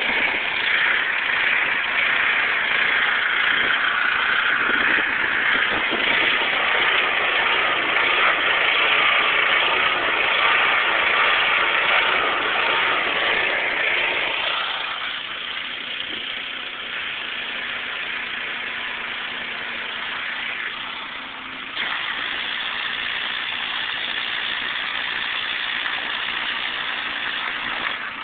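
5 hp Briggs & Stratton engine of a pressure washer running just after a cold start. Its sound drops a little about halfway through, then steps up suddenly near the end.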